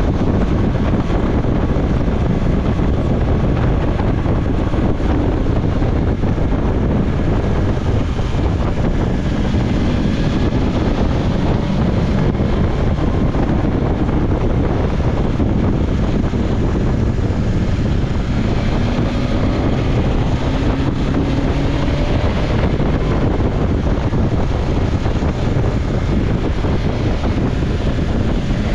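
Wind rushing over the microphone while riding a BMW S1000XR motorcycle. Its inline-four engine runs underneath, its pitch rising a few times, about two-thirds of the way through and again at the end.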